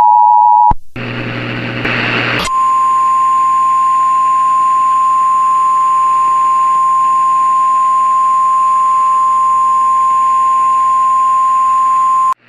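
Emergency Alert System alert tones from a mock warning. The two-tone attention signal ends under a second in. A short burst of static hiss with a low hum follows. Then a single steady NOAA Weather Radio 1050 Hz warning tone sounds for about ten seconds and cuts off suddenly near the end.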